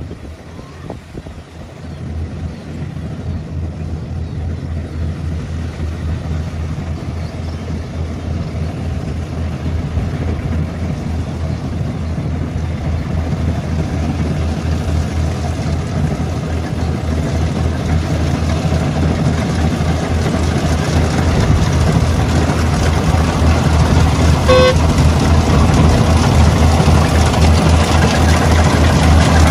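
Harvester engine running steadily with a low drone, growing steadily louder. About three-quarters of the way through, a horn gives one short beep.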